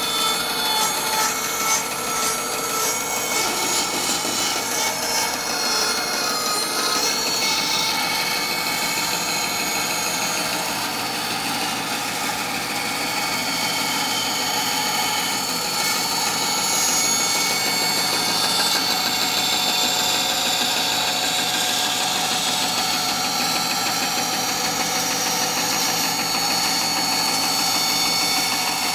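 Laguna 14BX bandsaw running steadily with a narrow blade cutting a tight curve freehand through 3/4-inch maple, the motor and blade sound blending with the steady sawing of the wood.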